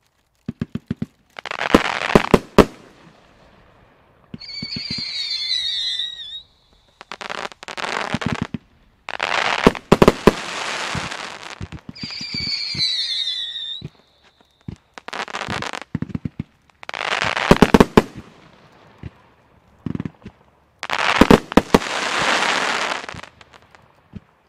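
Ox Express firework cake firing: about six bursts of hissing shots peppered with sharp cracks and pops, interrupted twice by volleys of whistles that waver and glide down in pitch.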